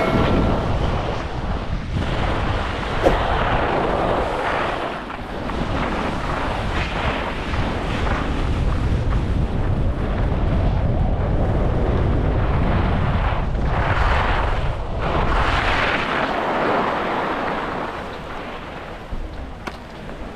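Skis running and scraping over a groomed piste during a downhill run, with wind rushing over the action camera's microphone; the snow noise swells in a few long carving swishes. The wind rumble falls away and the noise eases near the end as the skier slows.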